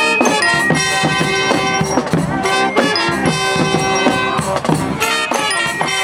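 College marching band playing a lively tune: sousaphone, saxophones and clarinets over bass and snare drums, starting abruptly at the beginning.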